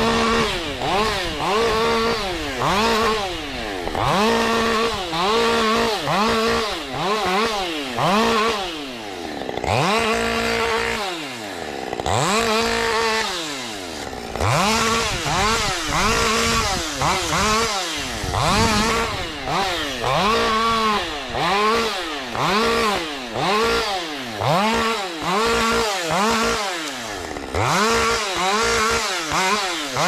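Husqvarna 550 XP Mark II two-stroke chainsaw revving up to full speed and dropping back over and over, about once a second, as in a run of short cuts. Around the middle it falls and climbs more slowly.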